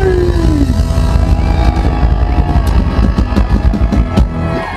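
Loud live country-rock band playing the end of a song: electric guitar with a bent note, bass and drums, with a run of drum hits near the end.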